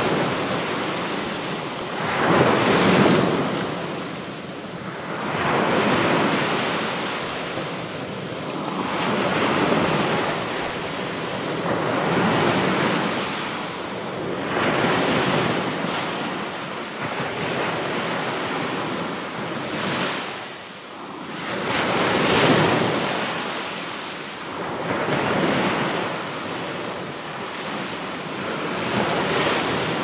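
Ocean surf: waves breaking and washing in, the rush of water swelling and easing every three seconds or so.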